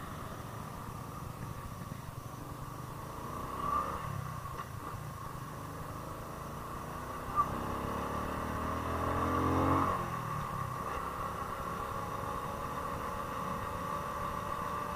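Small motorcycle engine running as the bike pulls away and rides along the road. Its pitch rises from about eight seconds in and drops off sharply at about ten seconds.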